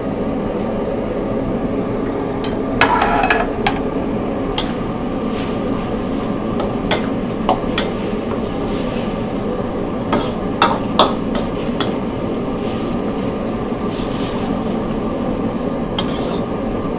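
Metal ladle scraping and knocking against a wok while pad thai noodles with chicken and carrots stir-fry over a steady sizzle. The scrapes and knocks come at irregular moments, a few of them sharper and louder.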